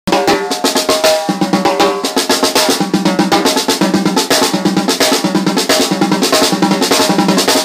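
Intro music starting abruptly: a busy drum track with rapid snare hits and rolls over a bass line pulsing about twice a second.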